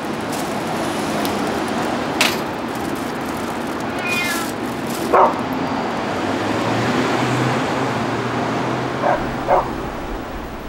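Several short high-pitched calls over a steady background noise: one about 2 seconds in, one near 4 seconds, one just past 5 seconds, and a quick pair near the end.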